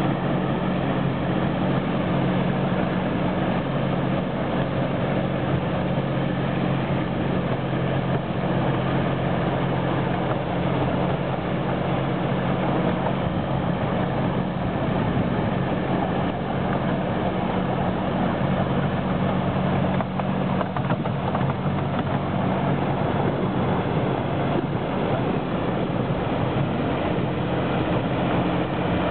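Engine of a 7¼-inch-gauge diesel-outline miniature locomotive running steadily at an even pitch while it hauls the train along.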